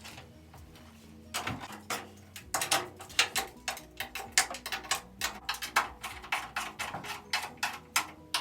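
A run of irregular sharp clicks and knocks, two to four a second, starting about a second in: hand work on the car's metal hood hinges and their fasteners.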